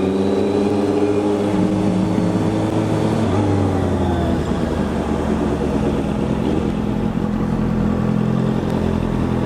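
Honda CB650F's inline-four engine running under way, its note easing down over the first few seconds and then holding steady, with a steady rush of wind and road noise.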